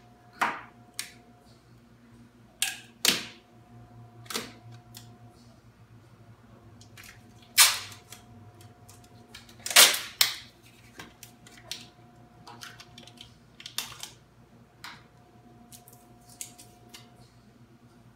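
Clear packing tape being peeled off a laminate countertop's freshly glued edge banding: a series of short, sharp rips at irregular intervals, the loudest about eight and ten seconds in.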